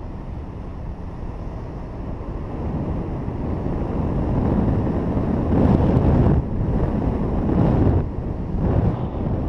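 Wind rushing over the camera microphone of a paraglider in flight, a steady roar of airflow that slowly grows louder, with stronger gusts in the second half.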